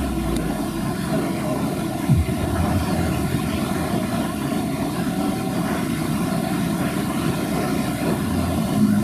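Off-road 4x4 vehicle's engine running steadily, a low drone.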